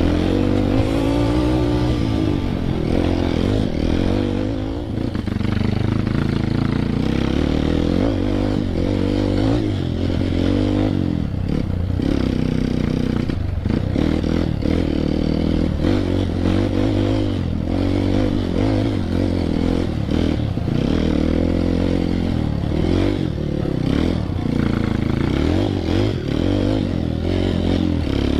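Dirt bike engine revving up and down over and over as it rides rough trail, with clattering and knocking from the bike over the ground.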